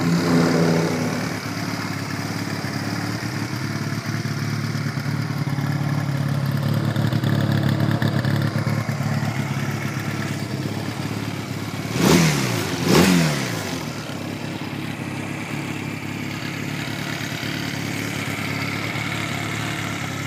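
A 2009 Honda Rebel 250's carbureted 249cc four-stroke parallel-twin engine idling steadily. Two quick throttle blips come about a second apart past the middle, each rising and falling in pitch.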